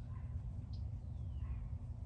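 A bird calling faintly: a short high chirp, then a thin whistle that slides down in pitch, over a steady low outdoor rumble.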